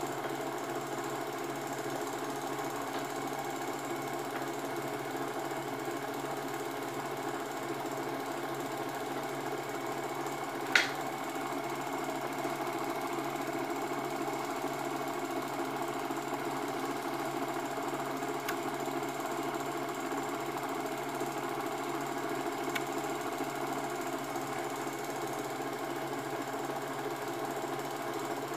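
Home-movie film projector running with a steady mechanical clatter, and one sharp click about eleven seconds in.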